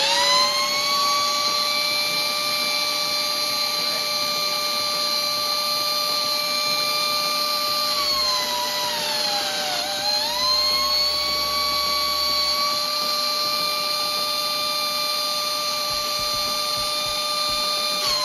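Shop vacuum running steadily while the 3D-printed air turbine it drives spins with a high whine. About eight seconds in, the turbine's whine sags in pitch and climbs back as the transmission is shifted into gear and loads it, and it sags again near the end.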